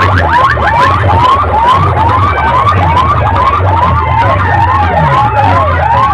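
Large DJ loudspeaker rig playing a siren-like effect very loud: quick rising whoops, about three a second, over heavy bass. From about four seconds in, falling glides cross the rising ones.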